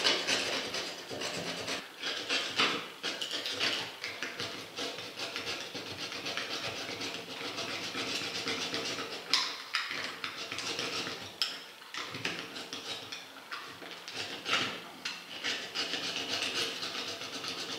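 Irregular scraping and rasping of a knife being worked through the thick rubber at the bead of an Omsk OI-25 truck tyre, with short sharp scrapes and knocks as the tyre is stripped.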